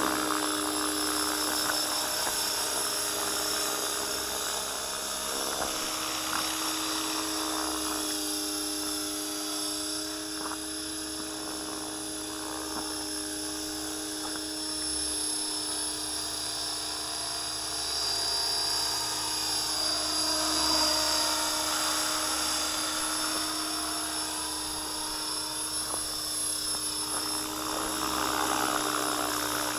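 Align T-Rex 500 electric radio-controlled helicopter in flight: a steady high whine from its motor and rotor blades, shifting in pitch and loudness as it moves about.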